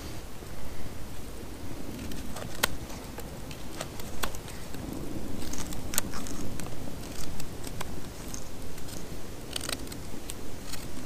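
Knife carving the end of a wooden stick in short scraping cuts, with a wood fire crackling close by; sharp clicks and pops stand out every second or two.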